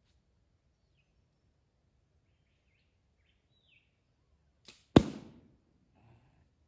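An arrow striking a stacked-cardboard target butt: one sharp thwack about five seconds in, with a brief rattling decay and a faint tick just before it. Faint bird chirps earlier.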